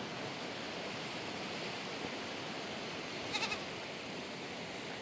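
A steady hiss of background noise, broken about three and a half seconds in by a single short livestock bleat that quavers in three quick pulses.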